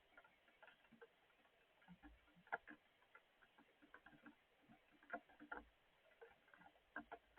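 Rain falling in scattered drops, each a soft irregular tick or patter. One drop about two and a half seconds in is louder.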